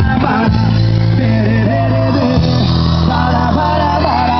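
Loud music with singing over a steady bass, played through a car sound system: a speaker box in a pickup truck's bed.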